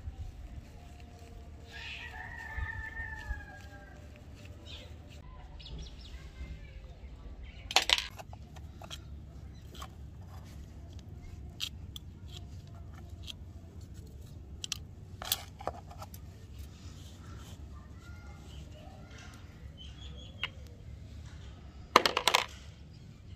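Small metal revolver parts clattering as they are dropped into a plastic bowl: three sharp clatters, the loudest near the end, with lighter clicks of the parts and tools being handled in between. A bird calls in the background about two seconds in.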